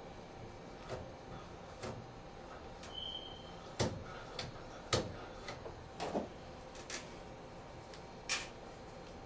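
Irregular clicks and knocks of things being handled, about ten spread over several seconds, the two loudest in the middle. A brief high squeak comes just before them and a short hiss near the end.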